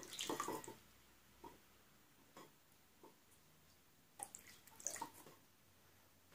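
Water poured briefly into a bowl of tomato paste at the start, then a wooden spoon stirring the thinned paste, with a few soft scrapes and taps against the bowl.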